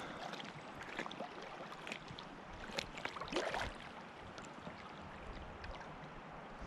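Water lapping and trickling around a float tube drifting in river current, with a few small splashes scattered through it.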